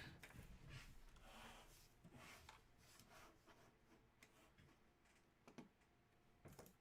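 Near silence: room tone with faint scattered clicks and light rustles, a couple of slightly sharper clicks near the end.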